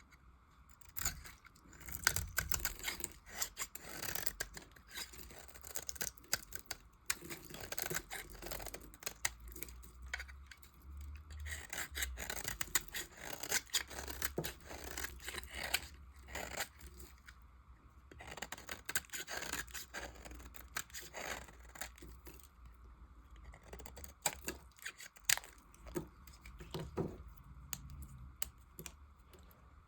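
Leftover pieces of soap being cut and carved: runs of crisp crackling and scraping cuts in clusters, with short lulls between them.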